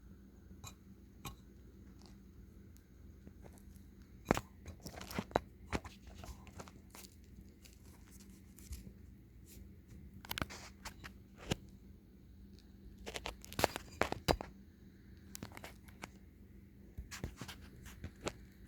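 Ceiling fan running with a steady low hum, under irregular sharp clicks and crackles that come in clusters, thickest in the middle of the stretch.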